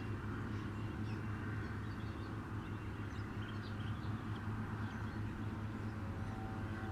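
Outdoor wetland ambience: a steady low hum with faint, scattered bird chirps over it.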